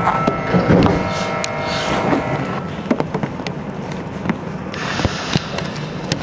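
Osaka Metro series 70 linear-motor subway car pulling away from the station, heard inside a motor car. Its running noise carries a set of steady whining tones for the first couple of seconds, and a few sharp clacks follow as it gathers speed.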